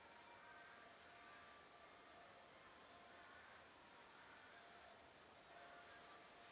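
Near silence with the faint, steady chirping of an insect: a high pulse repeating about two to three times a second.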